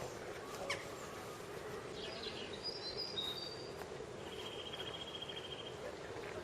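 Small birds chirping: a few short high-pitched calls, then a rapid trill of evenly repeated notes, over steady background noise.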